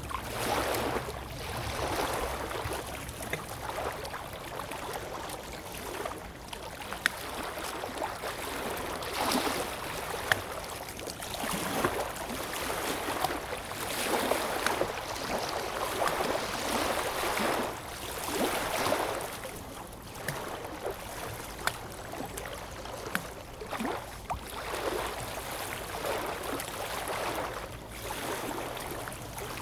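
Small lake waves lapping against the shore, the splashing swelling and fading every second or two, with a few sharper splashes.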